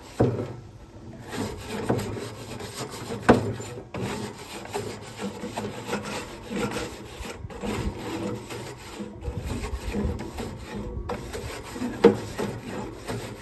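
Char-Broil nylon-bristle grill brush scrubbing back and forth over steel rod grill grates, a steady scratchy rubbing, with a few sharp knocks as the brush head strikes the bars.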